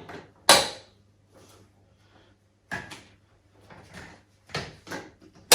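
Sharp plastic clicks and knocks from the baby rocker's frame and parts being handled and moved. The loudest comes about half a second in, with another near the end and a few smaller knocks between.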